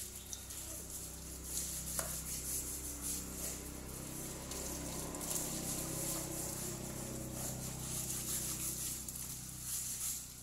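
Water running from an outdoor tap and splashing as hands wash things in a plastic basket, with a sharp click about two seconds in. A steady low hum runs underneath.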